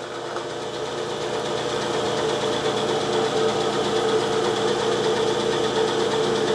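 Milling machine spindle running geared down at its lowest speed, 80 RPM, driving a tap that feeds itself into a through hole under power. A steady mechanical hum with a high whine, growing a little louder over the first couple of seconds.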